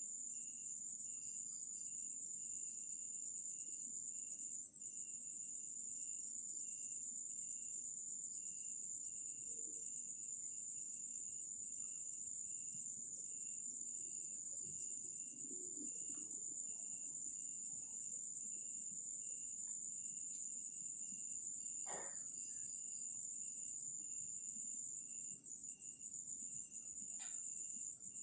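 Night insects: a steady high-pitched insect drone, with a cricket chirping evenly at about two chirps a second. A faint click sounds about two-thirds of the way through.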